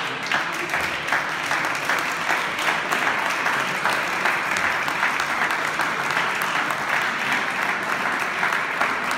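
Audience applauding: many hands clapping in a dense, even patter that holds steady.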